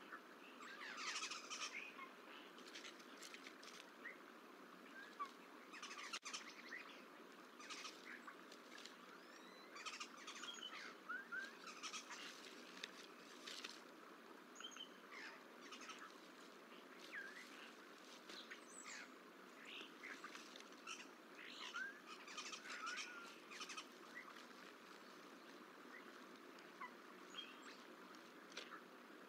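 Faint, scattered chirps and short calls of small wild birds, some rising in pitch, over a steady low outdoor background rush.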